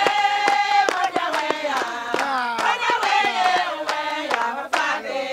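A group of women singing together with held, gliding notes, over steady rhythmic hand clapping.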